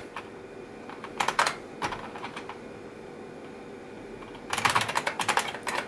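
Typing on an IBM buckling-spring mechanical keyboard: a short run of keystrokes about a second in, a few more keys around two seconds, then a fast run of keystrokes near the end. A faint steady hum runs underneath.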